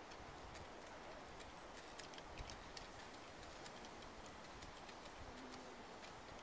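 Faint, irregular clicks and ticks over a steady hiss, from a small shovel and a backpack sprayer working a pile of coffee peels.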